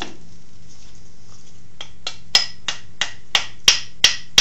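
A mallet tapping a lathe spindle shaft down through the headstock casting to drive the spacer into place: a quiet first two seconds, then about eight sharp knocks at roughly three a second, growing louder.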